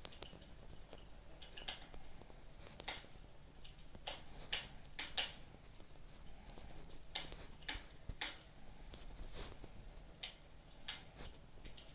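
Wood fire crackling: irregular small pops and snaps, several a second at times, over a low steady background.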